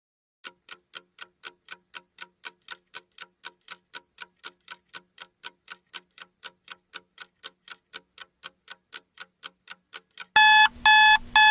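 Countdown-timer sound effect: a clock ticking about four times a second, then a loud electronic alarm beeping three times as the time runs out.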